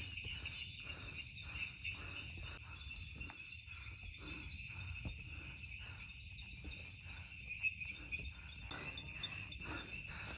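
A steady, high-pitched chorus of night insects such as crickets in a mountain forest, with the steps and rustle of hikers walking up a dirt trail, about two steps a second.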